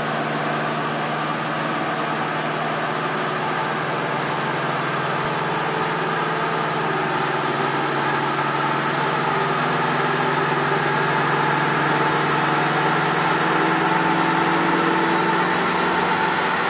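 Porsche 718 Boxster S's turbocharged flat-four, running through an Armytrix valved aftermarket exhaust, holding a steady low engine speed on a chassis dynamometer with the rear wheels turning on the rollers. The pitch stays even and the sound grows slightly louder in the second half.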